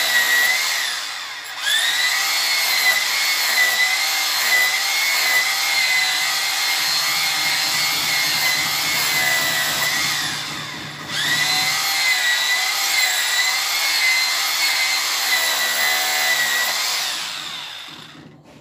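Electric drill boring down into the floor: a steady high whine. Twice, about a second and a half in and again about ten seconds in, it winds down and spins back up, and it stops shortly before the end.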